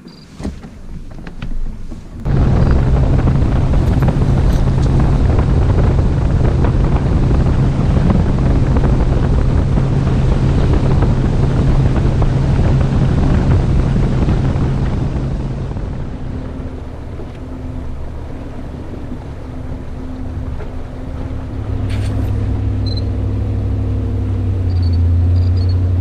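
A boat's outboard motor running across the lake: a steady engine tone under the rush of wind and water. About two-thirds of the way through it eases off, and near the end a lower, steady engine note settles in.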